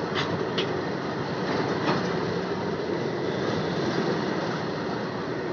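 Empty BOBSN open hopper wagons of a freight train rolling past: a steady rumble and rattle of wheels on rail, with a few sharp clanks in the first two seconds.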